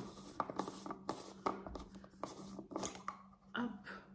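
Hands handling and opening a body lotion container: a quick run of small clicks, scratches and crinkles of packaging, thinning out after about three seconds.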